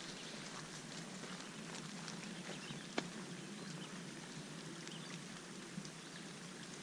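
Light rain falling on a pond's surface: a soft, steady hiss of drops with scattered small ticks and one sharper tap about three seconds in.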